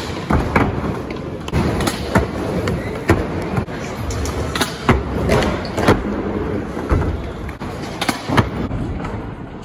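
Skateboards rolling on a concrete floor with a steady rumble, broken by repeated sharp clacks of boards popping and landing.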